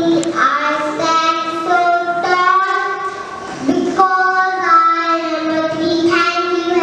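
A young girl singing in long held notes, phrase after phrase.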